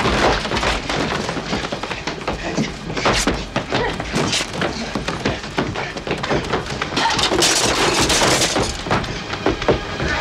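A violent hand-to-hand struggle between two people: repeated thuds and crashes as bodies hit walls and the floor, with something breaking and a few strained cries.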